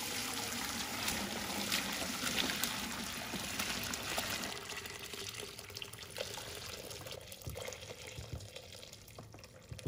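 Pho beef-bone broth pouring from a stockpot through a fine-mesh metal strainer into a pot below: a heavy splashing pour that thins out over the second half, with a few light knocks near the end as the last solids tip into the strainer.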